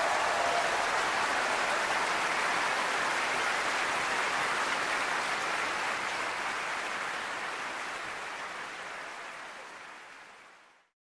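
Audience applause after a live music recording, a steady patter of clapping that fades out smoothly to silence near the end. The last notes of the music trail off in the first moment.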